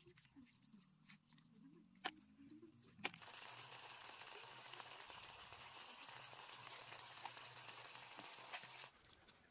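Near silence with a couple of faint clicks, then from about three seconds in a faint, even hiss that cuts off suddenly shortly before the end.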